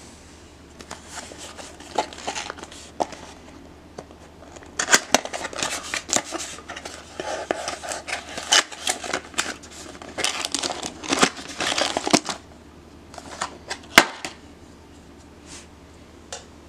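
Small cardboard box being opened and an electrical plug taken out and handled: rustling and crinkling with many scattered clicks and taps, then a few separate clicks, the sharpest about 14 seconds in.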